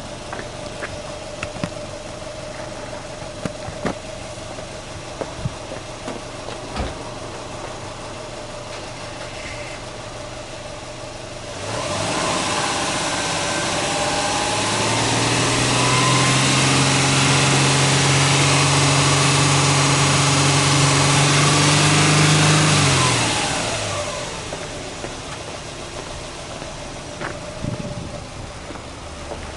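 Subaru Legacy B4 2.5GT's turbocharged 2.5-litre boxer four-cylinder engine revved in neutral. It idles low for about twelve seconds. Then the revs climb over a few seconds, are held steady and high for about seven seconds, and drop quickly back to idle about twenty-four seconds in.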